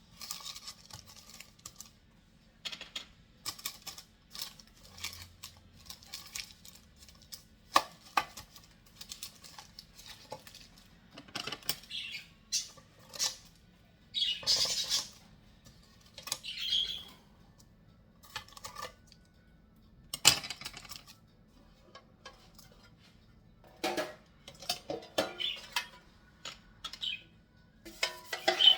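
Scattered kitchen handling sounds: short clicks and clatters of dishes and utensils mixed with brief rustles, coming irregularly with quiet gaps between.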